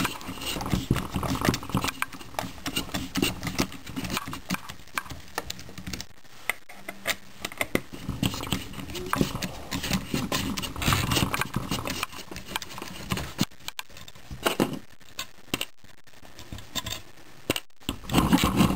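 Irregular clicks, knocks and clatter of hands handling tools and the water heater's plastic and metal parts.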